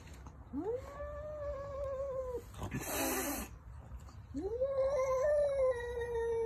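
Domestic cat giving two long, drawn-out warning yowls at what it takes for a rival cat, its own reflection, with a short hiss between them. Each yowl rises at the start and then holds steady.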